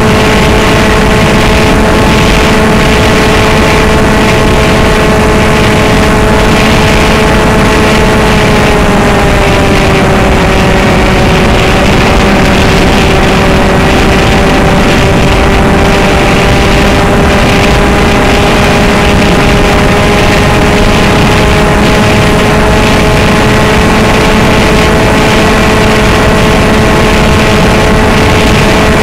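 A homemade foam RC plane's motor and propeller whining loudly at a steady pitch, heard close from the onboard camera over a loud rush of wind noise. The pitch sags a little about nine seconds in, then slowly creeps back up.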